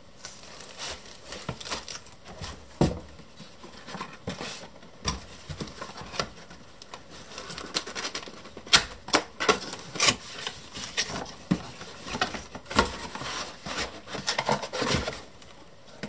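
Cardboard and paper packaging handled by hand: a small cardboard box slid out of a shipping carton and moulded paper-pulp packing pulled out, with irregular rustling, scraping and several sharper knocks.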